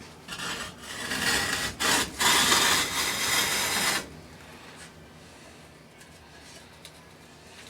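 Ceramic foam blocks scraping and rubbing together as the small insulated kiln is handled and opened, for about four seconds before it goes quiet.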